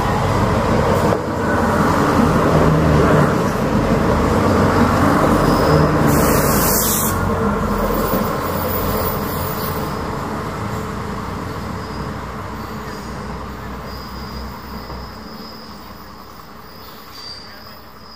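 Irish Rail 29000 class diesel multiple unit passing through the station at speed. Engine and wheel noise is loud in the first few seconds and fades steadily as the train recedes. A sharp hiss comes about six seconds in, and a thin high wheel squeal sounds near the end.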